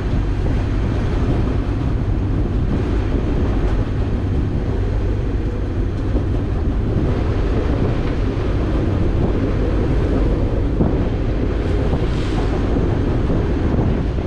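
Gale-force wind, gusting to about 50 knots, buffeting the microphone in a sailboat's cockpit as a steady low rush, with the sea rushing past underneath.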